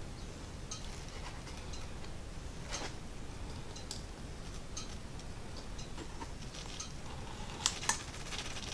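Light, scattered metal clicks of small hand pliers gripping and pulling a needle and thread through pack fabric while the stitching is tied off, with two sharper clicks near the end.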